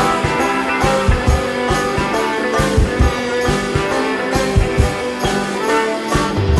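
A live band playing an instrumental passage, with drum thumps under sustained chords. The drums thin out near the end.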